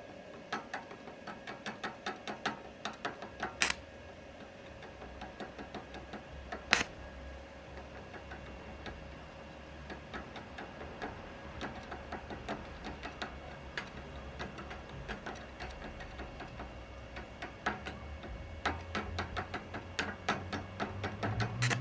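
Welding rod of a Parkside PISG 100 A1 inverter stick welder tapping and scratching against a steel workpiece while trying to strike an arc: irregular sharp ticks, with two louder snaps about 4 and 7 seconds in and quicker ticking near the end. A faint steady hum runs underneath.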